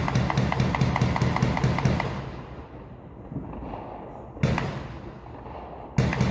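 Rapid strings of sharp bangs, about eight a second, each with a low echoing boom. The first string dies away about two seconds in, a single bang follows at about four and a half seconds, and another rapid string starts near the end.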